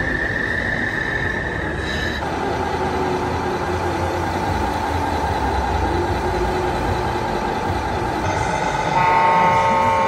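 Steady whine from radio-controlled model trucks, dropping to a lower pitch about two seconds in. Near the end comes a loud, sustained air-horn blast from a model truck's sound module.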